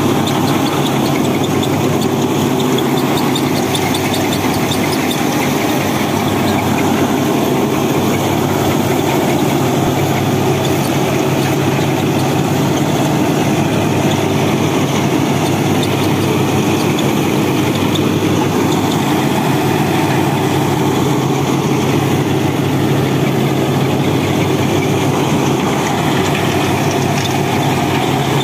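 Turbocharged Mahindra Arjun Novo 605 tractor engine running steadily under load, driving a Vishavkarma-741 straw reaper through its PTO, together with the reaper's drum and blower chopping wheat straw and blowing it into a trolley. The combined machine noise holds an even level throughout.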